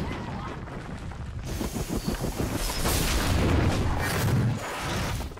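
Film soundtrack of a helicopter crashing and tumbling down a rocky slope: a dense rumble of rapid impacts and crunching, growing louder about halfway through and cutting off suddenly at the end.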